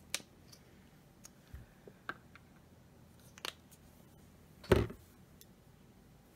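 Faint clicks and small knocks of a paint bottle and dotting tools being handled on a table, with one louder knock about three quarters of the way through.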